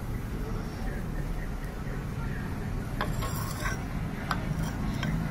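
Light metallic clinks of gearbox parts and tools being handled, a cluster of them a little past halfway through and a couple more near the end, over a steady low rumble.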